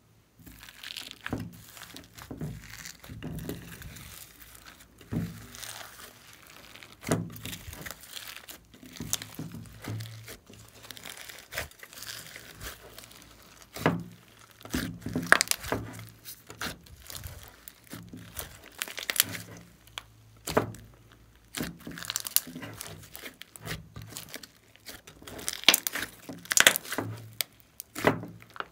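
Hands squishing, stretching and kneading glossy slime with beads mixed in: irregular sticky crackling and popping, with sharper snaps now and then.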